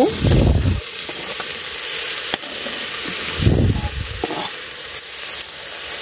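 Diced tomato and bell pepper sizzling in hot fat with browned garlic and onion, stirred with a wooden spoon in a pot; a steady frying hiss with two louder low bumps, one at the start and one about three and a half seconds in.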